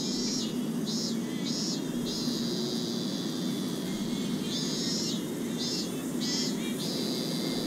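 Cicadas droning in the anime's soundtrack, a shrill buzz that swells and cuts off in pulses, some short and one held for a couple of seconds, over a steady low hum.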